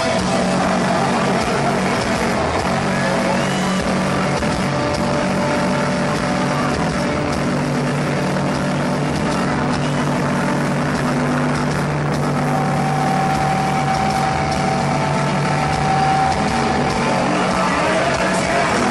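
Heavy metal band playing live: heavily distorted electric guitars and bass holding long low chords over drums.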